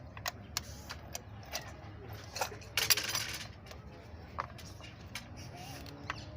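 Scattered metallic clinks and taps of tools and parts being handled, with a brief burst of clatter about three seconds in, over a steady low hum.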